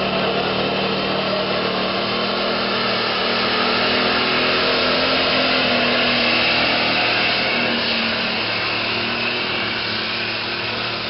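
Minneapolis-Moline super stock pulling tractor's turbocharged diesel engine running flat out under load as it drags the pulling sled down the track. The sound is loud and steady, swells a little midway, and fades slightly near the end as the tractor moves off.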